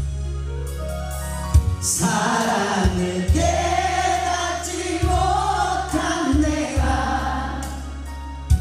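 Male singer singing a Korean trot song live into a microphone over a karaoke backing track with a steady bass beat. For the first two seconds only the backing plays, a rising run of notes; then the voice comes in, with vibrato.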